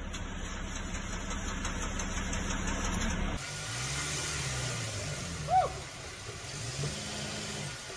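Safari vehicle engines idling: a steady low hum, then after a sudden cut a different, wavering engine hum. Past the middle comes one brief call that rises and falls in pitch, the loudest sound.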